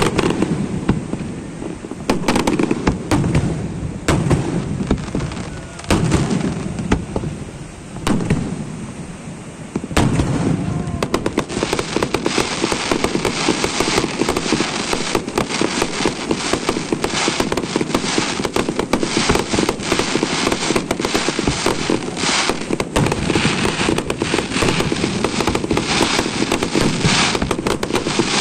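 A fireworks display: separate booming bursts about every two seconds, then, about ten seconds in, a dense run of rapid crackling and popping that keeps going.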